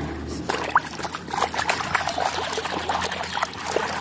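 Water sloshing and splashing in a plastic tub as a hand scrubs a mud-covered toy under the water, with many small splashes and knocks.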